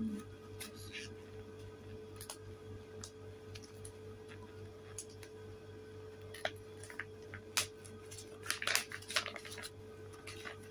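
Sealed clear plastic packaging crinkling and rustling as it is handled, in scattered short bursts that come thickest about eight to nine seconds in, over a steady low hum.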